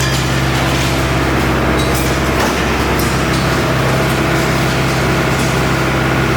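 Hyundai R85A crawler excavator's diesel engine running steadily, with a couple of faint knocks partway through.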